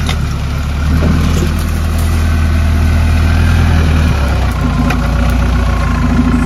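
Modified Mahindra Thar 4x4's engine running at low revs as it crawls down a rough trail, the engine note shifting about four seconds in.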